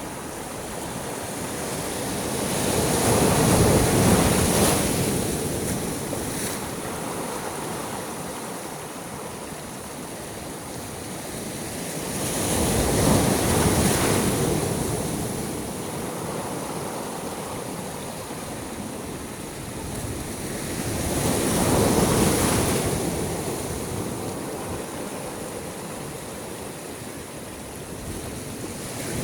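Sea waves surging and falling back, the surf swelling three times about nine seconds apart between quieter washes.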